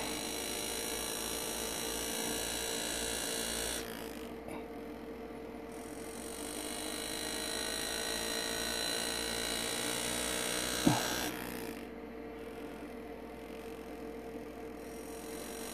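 Lindsay Classic foot-controlled air graver buzzing steadily as it cuts soft pewter, over a steady hum. The high buzz drops out twice for a couple of seconds, around four and twelve seconds in. One short, louder sound comes about eleven seconds in.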